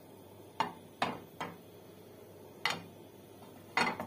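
Five light, irregularly spaced clicks and knocks of kitchenware around a frying pan on a gas stove.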